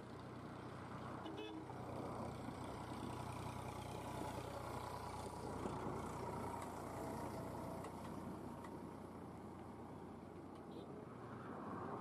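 Steady low rumble and hiss of background noise, with one short, faint tonal call or toot about a second and a half in.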